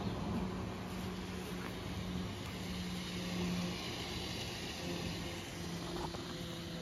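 Steady low machine hum over even outdoor background noise.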